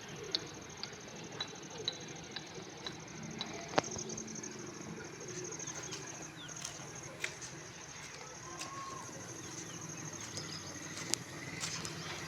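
Faint outdoor ambience with scattered short bird chirps over a steady high hiss, and a few light clicks.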